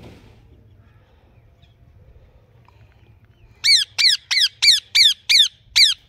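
Indian ringneck parakeet giving a rapid run of seven loud, harsh calls, each falling in pitch, about three a second, starting about three and a half seconds in.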